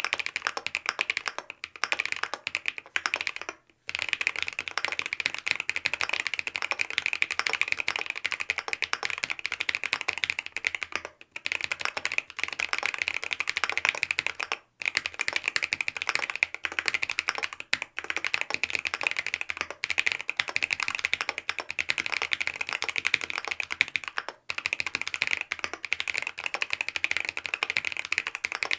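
Mechanical keyboard with lubed BSUN OG Holy Panda tactile switches, a polycarbonate plate and foam dampening, typed on quickly and continuously. The run of keystrokes is broken by a few short pauses.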